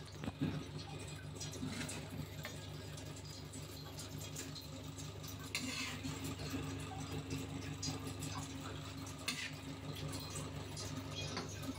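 A steady low hum that pulses evenly, with a few soft clicks and light knocks of handling scattered through it, the sharpest about half a second in.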